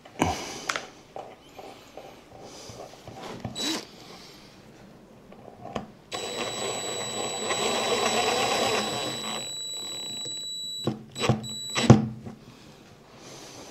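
Power drill-driver running steadily, driving a screw, with a constant high motor whine. It starts suddenly about six seconds in, drops in level a few seconds later and stops, followed by a few sharp knocks.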